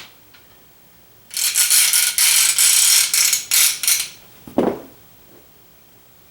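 A rapid, loud rattling clatter for about three seconds, then a single knock.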